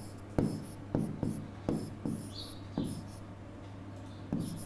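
Pen writing on a board: an irregular series of short taps and strokes as letters are written, over a steady low hum.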